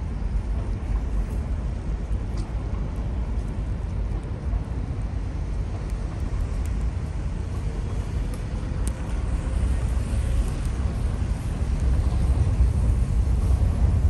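Outdoor city street ambience during a walk: a steady low rumble of traffic and air noise, growing slightly louder near the end.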